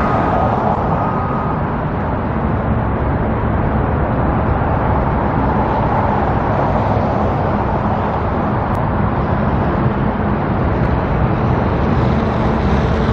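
Steady noise of road traffic, with no single event standing out.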